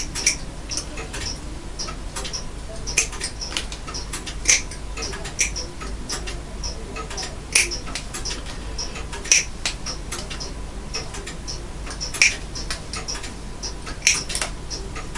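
Small metallic clicks and light scraping from hand tools working on a brass clock movement, pulling out the old gut line. The clicks come at an uneven pace, with a few sharper ones every couple of seconds.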